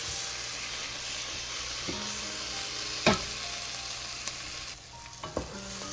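Tomato, onion and masala mixture sizzling in a pan over high heat, with a spatula stirring and knocking against the pan. The loudest knock comes about three seconds in, and the sizzle briefly thins near the end.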